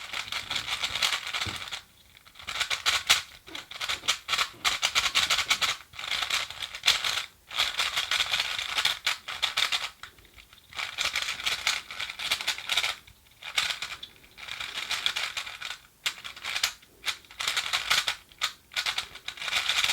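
DaYan 3x3 speed cube being turned fast by hand: a dense run of plastic clicking and rattling from the layers, in bursts of a few seconds with brief pauses. The turning is very crunchy and scratchy, typical of a new, unbroken-in cube.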